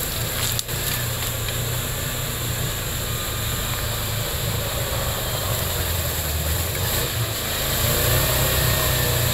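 Off-road jeep's engine running under load as its wheels churn in deep mud, a steady low drone that grows louder near the end.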